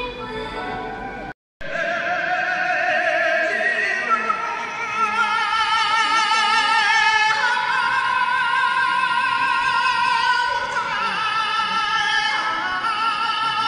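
Stage-show music with a high solo voice singing long held notes in an operatic style, with wide vibrato. The sound cuts out completely for a moment about a second and a half in.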